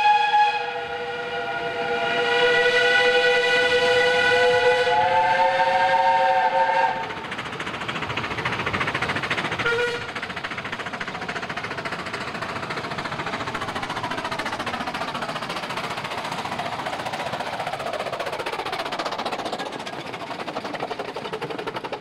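A 15-inch gauge steam locomotive's chime whistle sounds a chord of several notes: a blast ending at the start, then a longer blast of about five seconds. After that comes the steady noise of the steam train running.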